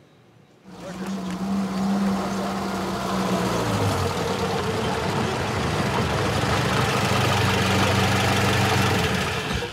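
Engine of a vintage 1940s sedan running as the car drives up a dirt street, with a rough noise under the engine note; the engine's pitch drops about four seconds in as the car slows.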